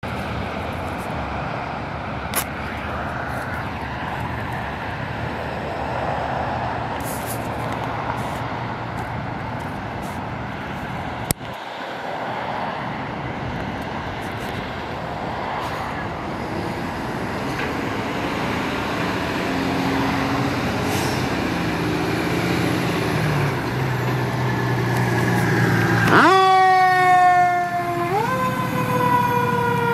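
Fire engine's diesel engine running and growing louder as the truck pulls out and drives past. About 26 seconds in, its siren sweeps up quickly and slowly winds down, then sweeps up again about two seconds later.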